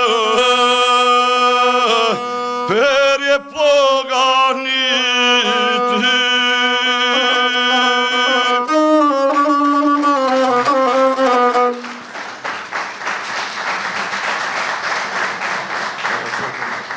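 Gusle, the one-string bowed folk fiddle, playing a wavering closing melody that stops about twelve seconds in, followed by audience applause.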